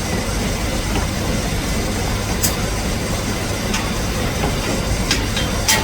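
A steady low machine rumble like an engine running, with a few sharp clicks. Near the end comes a quick run of sharp metallic ticks, about five a second.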